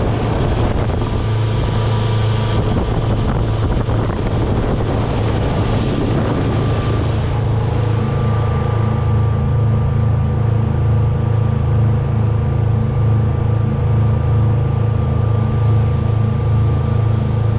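Motorboat engine running steadily at cruising speed, a low hum under the rush of water and wind on the microphone. The wind and water noise is heavier for the first several seconds, then the engine's even throb comes through more clearly.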